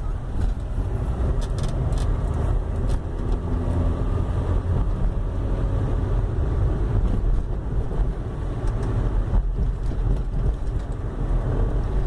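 Honda Civic front end with a steady low vehicle rumble and a few light knocks, the 'tuc tuc' front-suspension noise. Such a knock is often mistaken for a steering box fault.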